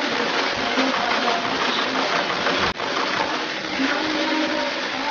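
Starlink 747 shoe-upper sewing machine running as it stitches, a steady motor whir with stitching noise. The sound cuts out for an instant a little over halfway through.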